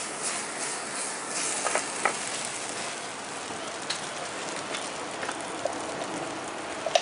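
Rigatoni and seafood sizzling in a frying pan over a gas burner: a steady frying hiss with a few short, sharp clicks scattered through it.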